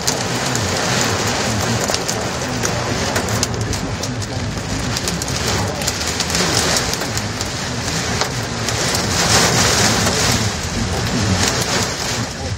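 Heavy rain hitting a car's windshield and roof, heard from inside the car: a dense patter of drop hits over a steady low rumble, heaviest about nine seconds in.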